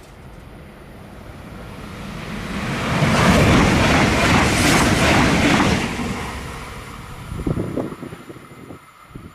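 Passenger train passing through a station at speed without stopping, its rushing rail and wheel noise building, peaking for about three seconds and fading away. Its wake buffets the microphone with a few low gusts of wind near the end.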